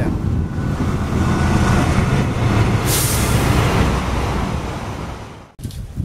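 A heavy vehicle, like a truck or bus, rumbling past: louder in the middle, with a hiss about three seconds in, then fading away.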